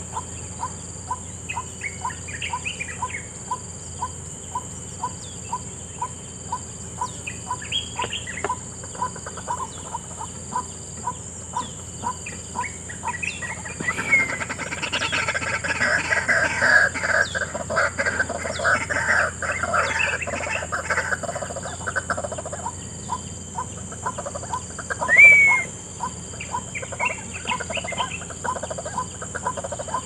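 White-breasted waterhens (wak-wak) calling from cover: a steady series of short notes about two a second, swelling about halfway through into a loud, dense bout of overlapping calls for some eight seconds. A single sharp rising note comes near the end.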